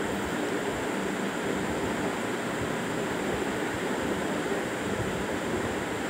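Steady hiss of background noise, even and unchanging, with no distinct knocks or clicks.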